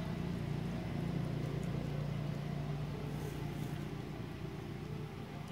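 A steady low motor hum, like an engine running some way off.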